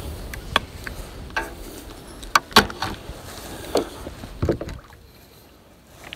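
Irregular knocks and clatters of a fish and tackle being handled in a kayak, with several sharp clunks on the hull, quieting down after about five seconds.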